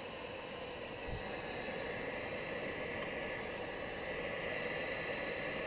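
Electric hot-air blower running steadily, its fan making an even whooshing hum, as it shrinks heat-shrink tubing over a soldered wire splice. The blowing gets slightly louder about a second in.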